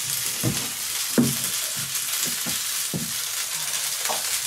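A ling fillet sizzling steadily as it shallow-fries in a frying pan, the oil barely covering the bottom of the pan. A few short knocks sound over the sizzle, the loudest about a second in.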